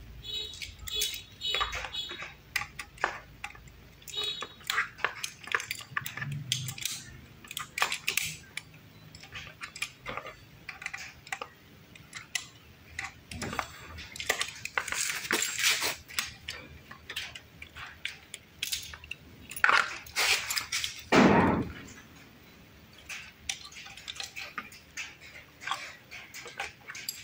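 Hand tools and metal parts clinking and tapping as a headlight is bolted onto a bicycle's front mudguard mount: scattered clicks and clinks, with one heavier knock about three-quarters of the way in.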